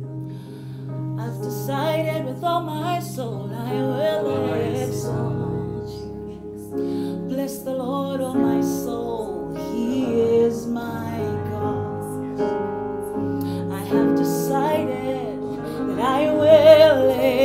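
Slow worship song: a woman singing with vibrato over held instrumental chords, swelling loudest near the end.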